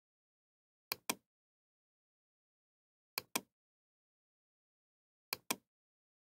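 A computer mouse button clicked three times, about two seconds apart, each click heard as a sharp press and release.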